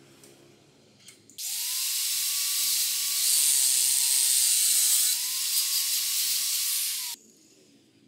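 Angle grinder spinning up and grinding into a steel plate for about six seconds: a loud hiss with the motor's whine, which dips briefly under load near the middle and recovers, then cuts off suddenly.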